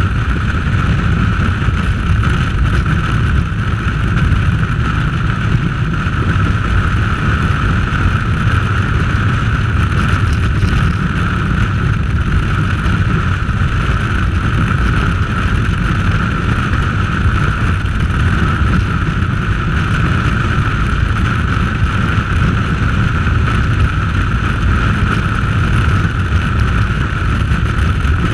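A motorcycle running at steady cruising speed, heard through an action camera's microphone as a loud, unbroken rush of wind noise over the engine and road noise.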